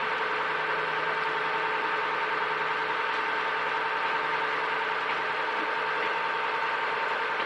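Boat engine running steadily, a constant hum with several held tones.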